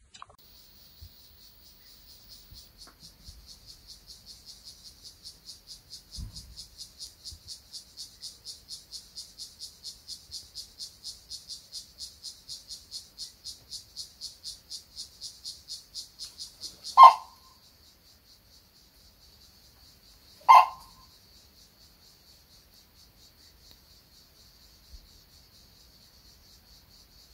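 An insect chirring in fast, even, high-pitched pulses, about five a second, that stops suddenly about two-thirds of the way through, leaving a faint steady high buzz. Two short, loud, sharp sounds come after it, about three and a half seconds apart.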